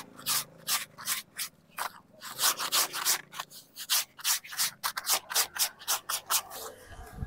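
Quick scrubbing strokes on a tent's plastic tarp groundsheet, about three a second, as it is cleaned of dirt; the strokes stop shortly before the end.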